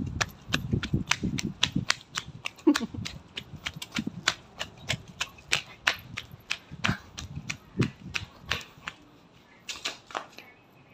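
Quick footsteps slapping on concrete at a run, about three to four sharp slaps a second, heavier in the first couple of seconds. They pause briefly near the end, then a few more follow.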